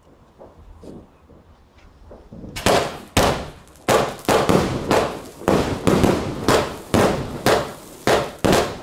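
A multi-shot firework cake firing. After a quiet couple of seconds it starts about two and a half seconds in, with a steady string of sharp bangs, about two or three shots a second.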